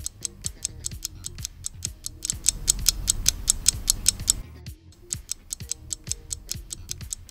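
Quiz countdown-timer sound effect: fast, even clock-like ticking, several ticks a second, over a low background music bed that is louder in the middle.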